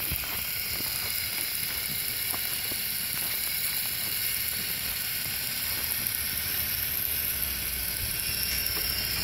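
Drivetrain of a radio-controlled crawler truck on 3D-printed snow tracks, whirring steadily as it crawls over snow, with a few faint scattered clicks.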